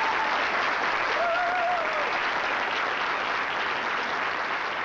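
Studio audience applauding steadily, with a single voice calling out briefly above the clapping about a second in; the applause slowly fades toward the end.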